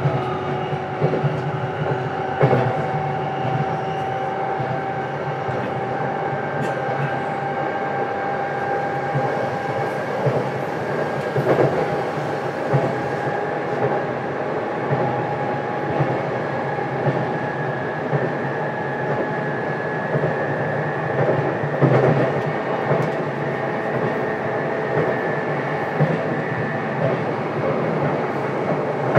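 Running sound inside the motor car of a JR East E233-7000 series electric commuter train at speed. The traction motors give a steady, even whine over the rumble of wheels on rail, with a few sharp knocks from wheels and track.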